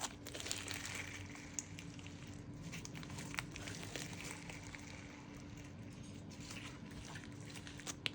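Slime being squished and worked by hand: soft wet squishing with scattered small pops and crackles.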